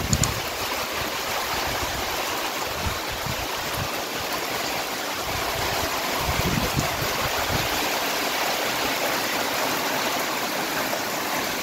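Heavy rain pouring down steadily on a waterlogged dirt yard and trees, an even hiss of rain. A few low thumps break through about six to seven seconds in.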